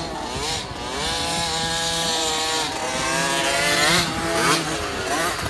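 Several 50cc two-stroke motocross bikes revving as they ride past. Their pitch climbs and levels off again and again as the riders accelerate and change gear, and the sound is loudest about four seconds in.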